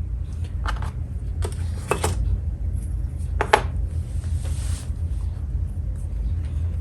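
Small hard parts of a jukebox button panel clicking and knocking as they are handled and set down: a few sharp clicks, then a brief scraping rustle about four seconds in, over a steady low hum.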